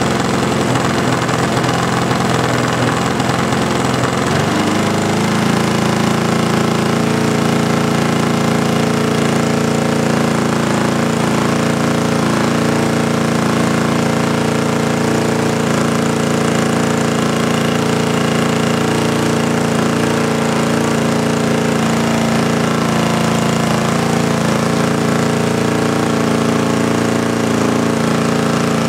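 Titan 62 cc two-stroke gasoline engine of a giant-scale RC plane, fitted with a Chinese ignition, running on a ground test run. It runs at a low steady speed, steps up to a higher speed about four and a half seconds in, and holds there.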